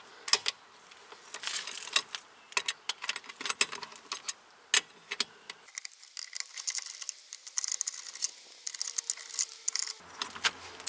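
Ratchet wrench working the lug nuts off a car's front wheel: a run of irregular small metallic clicks and ticks.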